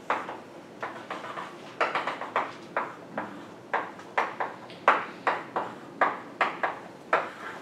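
Chalk writing on a blackboard: an irregular run of sharp taps and short scratches, two or three strokes a second.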